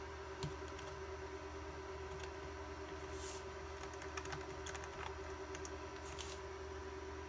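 Small clicks and taps of plastic case parts and a small screwdriver being handled while a palmtop computer is screwed back together, with a sharper knock about half a second in and two brief scrapes later on. A steady faint hum lies underneath.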